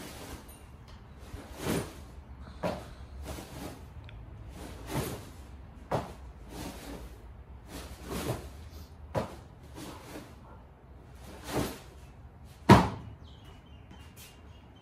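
A 20-kilo sandbag being cleaned over and over: a thud with a rustle of the bag's fabric every second or so as it is swung up and caught, then lowered. The loudest thud comes near the end.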